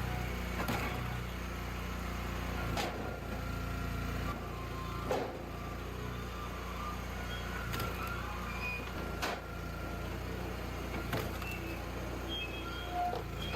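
Engine of a log splitter with a conveyor, running steadily, with sharp knocks every couple of seconds.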